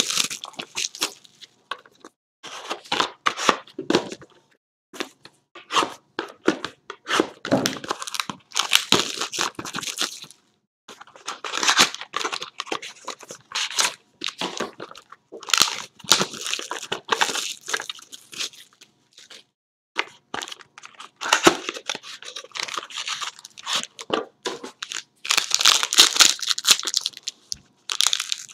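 A trading-card box and its packaging being torn open and crinkled by hand, in irregular bursts of tearing and crackling with short pauses between them.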